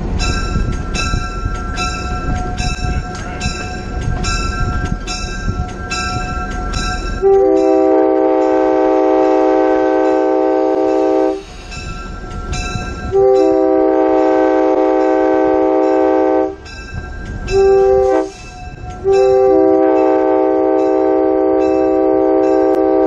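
Locomotive air horn sounding the grade-crossing signal, two long blasts, a short one and a final long one, starting about seven seconds in. Before it, the locomotive's bell rings about twice a second over a low rumble of the moving train, and it keeps ringing under the horn.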